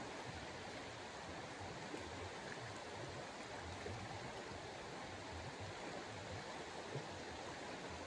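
Steady outdoor rushing noise with an uneven low rumble underneath, with no distinct event standing out.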